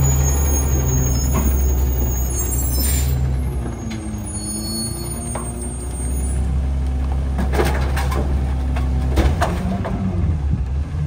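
Heil rear loader garbage truck's engine running steadily, with a short hiss about three seconds in and a series of metallic clanks and bangs in the second half.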